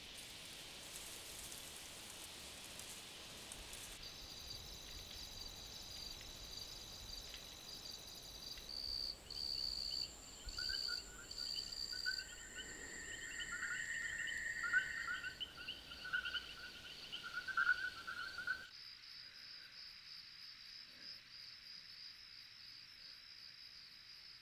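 Chirping insects such as crickets: after a soft hiss, several pulsing trills at different pitches build up and overlap. Near the end the background hiss drops out suddenly and a single high, steadily pulsing cricket-like chirp carries on alone.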